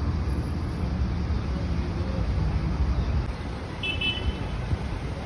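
Steady low outdoor rumble with a brief high chirp about four seconds in.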